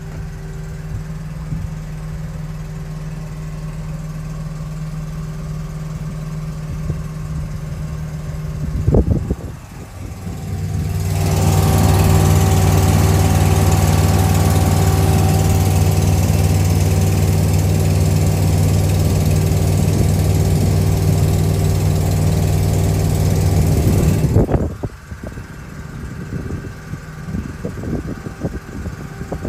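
Cable ferry's engine running steadily, a low even drone. It sounds muffled at first, then much louder and fuller with a hiss over it for about thirteen seconds in the middle, then muffled again, with a short knock about nine seconds in.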